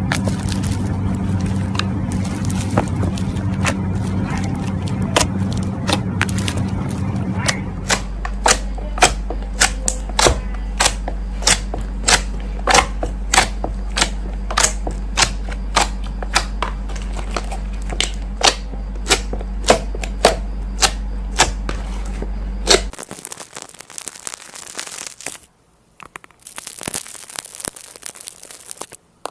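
Slime being worked by hand: a regular run of sharp pops and clicks, about one or two a second, over a steady low hum. Near the end these give way to denser crackling.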